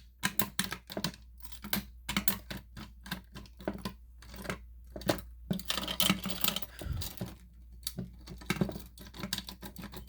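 Irregular clicks and taps of small hard objects being handled, several a second, with a low thump about seven seconds in, over a faint steady low hum.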